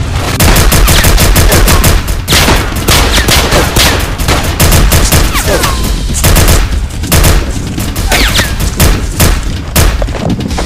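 Rapid gunshot sound effects in dense bursts of automatic fire, dubbed over toy blasters, with a few short falling whistles among the shots.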